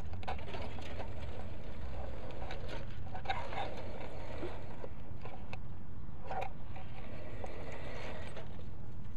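Märklin Maxi gauge 1 model steam locomotive running along its track: a steady mechanical running sound with a handful of sharp clicks from the wheels and rails.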